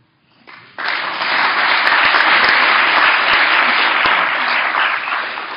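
Audience applauding a speaker who has just finished her talk; the clapping starts about a second in, holds steady and begins to ease off near the end.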